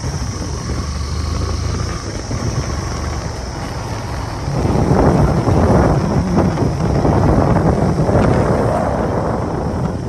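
Motorcycle engine running while riding, with wind buffeting the microphone. The rushing noise grows louder about halfway through.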